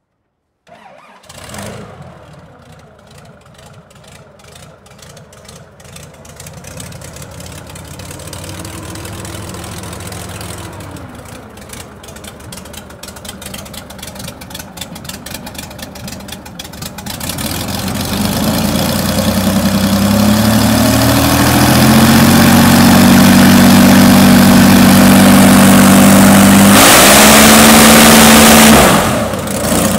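Airboat's aircraft engine, driving the propeller through a reduction gearbox, starting about a second in and running at low power, then throttled up in a rising sweep to full power for a thrust test. It holds loud and steady for several seconds with a rush of propeller wind, then drops back sharply near the end.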